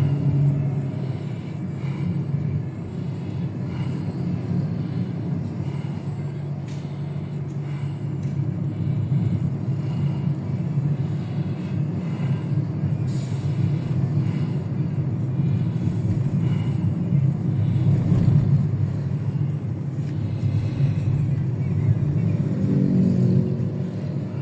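Steady low rumble of engine and tyre noise heard inside a moving car's cabin.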